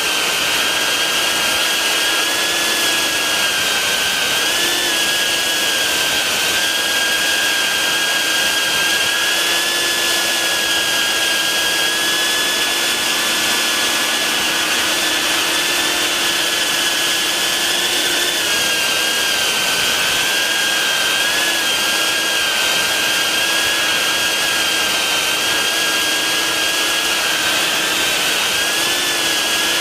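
Brushless motors and propellers of a BetaFPV 95X V3 FPV quadcopter giving a steady high-pitched whine that wavers slightly up and down as the throttle changes, heard from a camera mounted on the drone.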